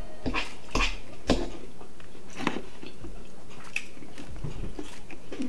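Two people eating close to the microphone: chewing mouthfuls of salad, with scattered short clicks of forks against bowls.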